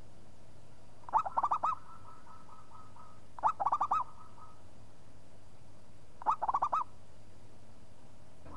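Zebra dove (perkutut) cooing: three phrases a few seconds apart, each a quick run of rolling, looping notes. The first two are followed by softer repeated notes.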